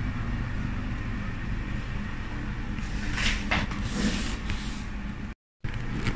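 Glass sliding shower door moving along its metal track, a few short scrapes about three to four and a half seconds in, over a steady low hum. The sound cuts out for a moment near the end.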